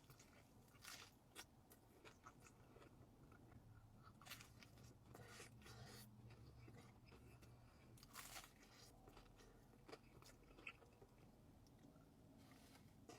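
Faint, irregular crunching and chewing of a crispy fried chicken tender.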